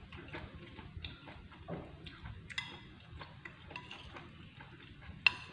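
Metal spoon scraping and clicking against a ceramic bowl while mixing and scooping rice with green beans. There are small irregular clicks throughout, with a sharper clink about halfway and a louder ringing clink near the end.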